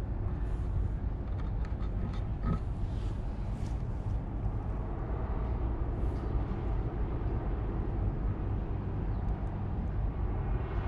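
Low rumble of wind on the microphone outdoors, with a few soft rustles in the first few seconds and once more around six seconds in.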